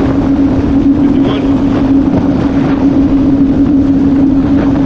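2005 Yamaha VX110 WaveRunner's four-stroke engine running at speed, a steady, unwavering drone with rushing noise beneath it.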